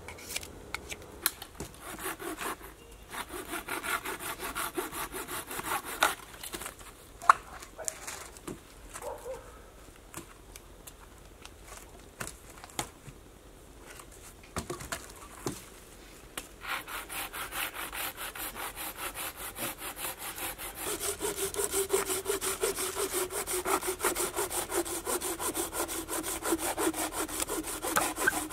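A hand saw cutting green wood in bouts of steady back-and-forth strokes, with the longest and loudest bout running through the second half. A few sharp knocks fall in a gap between bouts.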